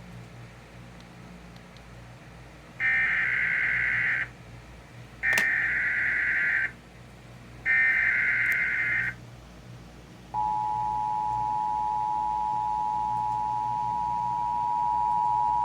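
Emergency Alert System header: three bursts of SAME digital data tones, each about a second and a half long, then from about ten seconds in the steady two-tone EAS attention signal. They mark the start of a new alert, here a severe thunderstorm warning.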